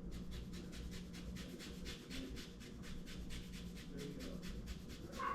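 Lemon peel being zested: rapid, even rasping strokes, about six a second.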